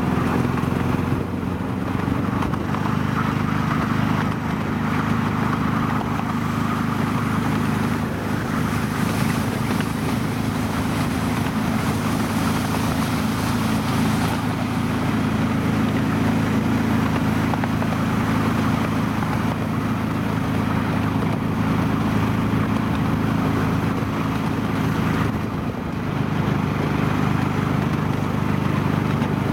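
Diesel locomotive of a miniature railway hauling a passenger train, its engine running steadily under way. The engine note dips briefly near the end.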